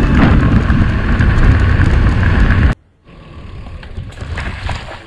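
Wind buffeting the camera microphone and a knobby tyre rolling on gravel as a mountain bike rides at speed, loud and rumbling. It cuts off suddenly a little under three seconds in, leaving a much quieter bike rattle with scattered clicks from a dirt trail.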